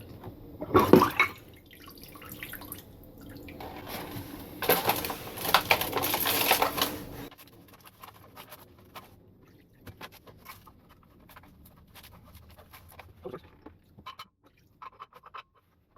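Evapo-Rust rust remover being poured into a small container over a vise part, splashing for a few seconds, after a clunk about a second in. Faint light clicks and taps of the part and container follow.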